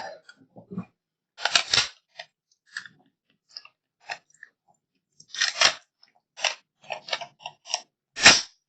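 A string of short, scattered clicks and knocks, about a dozen in all, with silence between them. A louder, sharper crack comes about eight seconds in.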